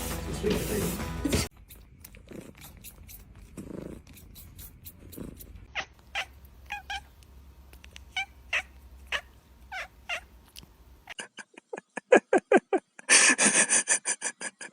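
A cat making short repeated calls, then a rapid run of pulsed calls, ending in a louder, drawn-out yowl.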